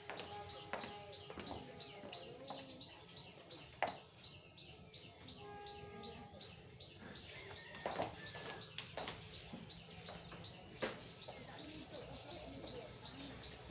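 A bird's short, high chirp repeated quickly, about four times a second, for most of the stretch, over faint ambience with scattered light knocks.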